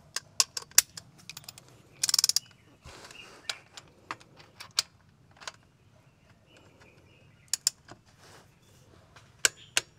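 Ratchet wrench clicking in short, irregular runs as the manual gearbox's strainer plug is tightened, with a quick rapid run of clicks about two seconds in.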